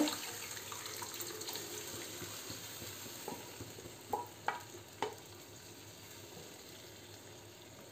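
Boiled kidney beans and their cooking water poured into a pan of fried masala, which sizzles softly, then a wooden spatula stirring the mix. A few sharp knocks come about three to five seconds in.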